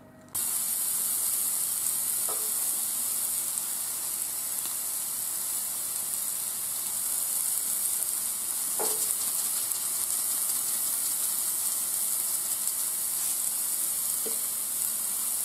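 Marinated ribeye steak sizzling steadily on the hot grill plate of a KitchenHQ indoor electric grill; the sizzle starts suddenly just after the beginning.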